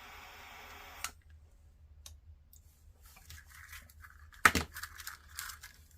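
A steady hiss that cuts off suddenly with a click about a second in, followed by small clicks and handling noises of soldering work on a wire and connector, with one sharp click past the middle.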